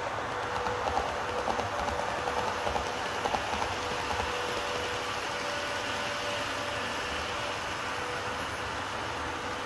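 HO-gauge model electric train, an E233-series model, running on the layout: its wheels click over the rail joints as it passes close by, over a steady motor whine. The clicks stop after about three and a half seconds.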